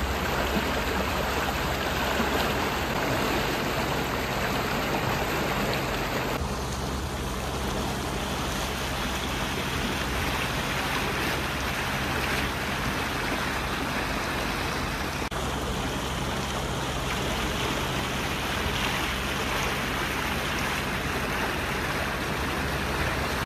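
Steady rushing of water with a low, even hum underneath; the sound changes abruptly about six seconds in.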